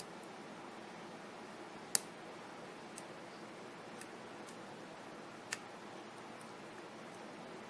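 Several sharp clicks of a lock pick and tension tool working the pins and sliders of a CX-5 high-security lock cylinder, the loudest about two seconds in, over a faint steady hiss.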